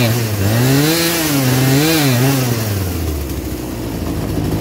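The 42cc two-stroke engine of a Poulan Pro PP4218A chainsaw revs up and falls back twice, then settles to a steady idle about three seconds in. It is running on a newly fitted carburetor whose high and low mixture screws are being tuned.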